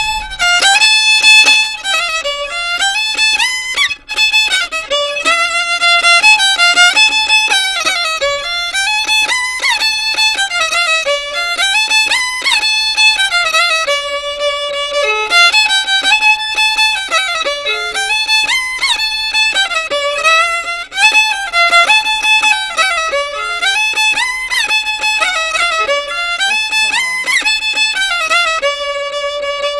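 Violin playing an Andean tune in repeated, falling melodic phrases, with a steady low note held beneath the melody.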